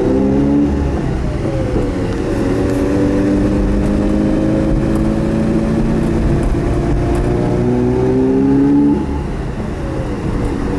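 Mazda RX-7's 13B twin-rotor engine pulling under way, heard from inside the cabin. Its pitch dips about two seconds in, then climbs steadily as the car gathers speed, and it eases off and drops in loudness about nine seconds in.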